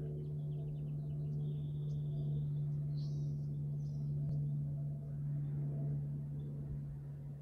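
A steady low hum with a few small bird chirps and a short high whistled note over it in the first half.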